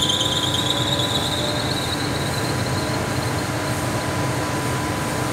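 A 20 HP floor-standing air conditioner just switched back on gives a high squeal that rises slowly in pitch and fades away over the first few seconds. Under it runs the unit's steady hum.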